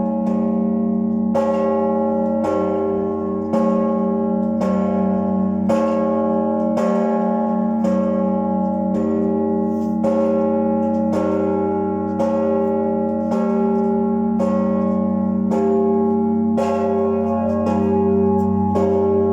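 Church bell struck about once a second, each stroke ringing on under the next.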